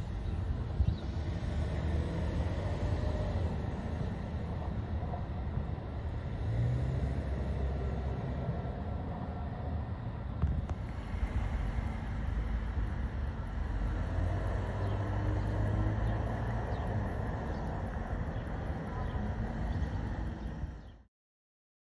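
Steady low background rumble of outdoor ambience on the microphone, cutting off abruptly near the end.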